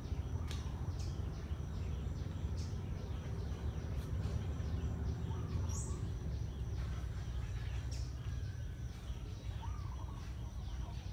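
Scattered bird chirps over a steady low rumble of outdoor background noise.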